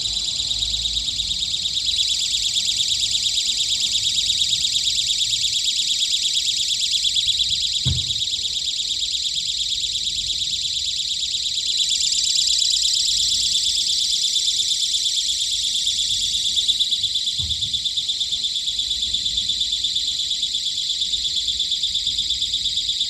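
A continuous high-pitched electronic alarm buzzer, sounding with a fast, even pulsing. Two dull low thumps come partway through.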